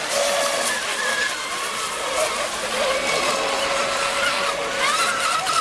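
Electric mono-hull RC racing boats running at speed, several high motor and propeller whines that rise and fall in pitch as they pass, over a steady hiss of water spray.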